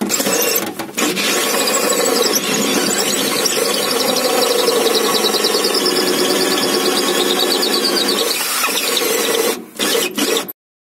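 Cordless drill driving a hole saw through a wooden floor, cutting continuously with a whining, rasping noise. The cut stops abruptly about ten and a half seconds in.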